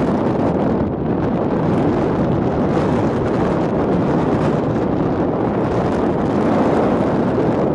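Strong wind buffeting the microphone over rough sea, with waves breaking against a harbour breakwater and onto a shingle beach: a loud, steady rushing noise.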